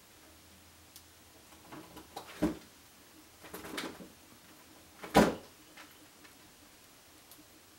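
Household kitchen clatter: a few sharp knocks, a small one about two and a half seconds in, a short cluster around four seconds and the loudest just after five seconds, over a quiet room.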